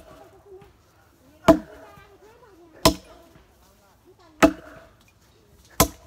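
Heavy chopping strikes with a blade on a hard surface, four evenly spaced blows about one every second and a half.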